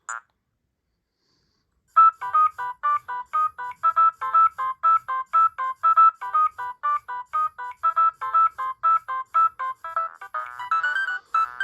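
Nokia 6010 mobile phone ringtones: one melody cuts off at the very start, and after about two seconds of silence another begins, a tune of short, evenly spaced electronic notes that grows busier near the end.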